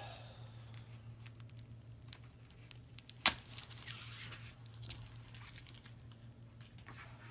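A playmat and its packaging being handled: scattered small clicks and short rustles, with one sharper knock about three seconds in, over a low steady hum.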